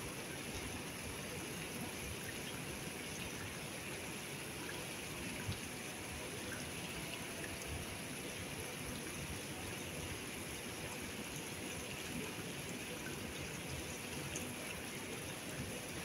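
Many small fountain jets splashing steadily into a shallow pool, a continuous trickling patter of falling water.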